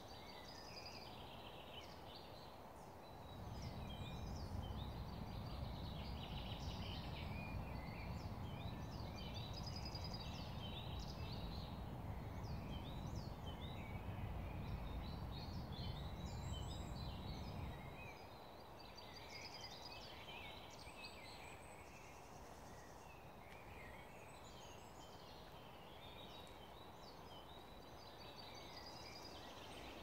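Several woodland birds singing at once, a busy mix of chirps and trills. From about three seconds in until about eighteen seconds a low rumble sits under the song and is the loudest part.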